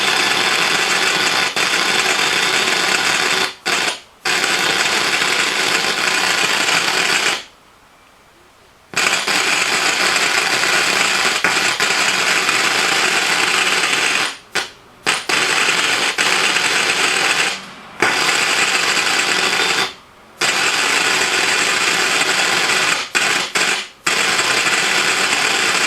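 Loud hissing, crackling noise from the BenQ VH3743's audio output in place of normal sound, the abnormal noise the set was brought in for. It cuts off abruptly several times, once for about a second and a half.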